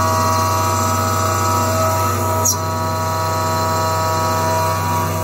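QuikCell QCM-1 CNC milling machine running an end mill through steel bolster stock under flood coolant: a steady machine whine made of several tones, with cutting noise. About two and a half seconds in there is a short click and a quick shift in the sound before it settles back.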